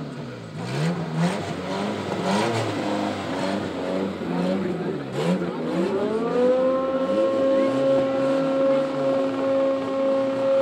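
Parade vehicle engines revving up and down. About six seconds in, a siren winds up and holds one steady tone.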